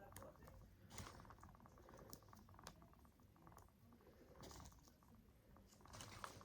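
Faint, scattered clicks of tiny plastic toy parts being handled and pressed together, with soft rustling between them.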